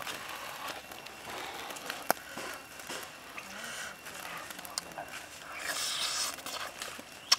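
A person eating grilled chicken thigh: chewing and mouth sounds, with a few sharp clicks.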